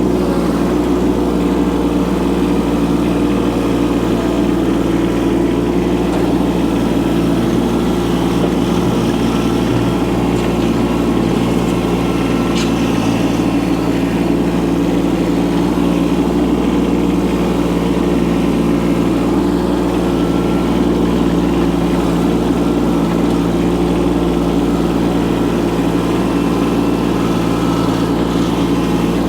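Micro excavator's engine running steadily at a constant speed.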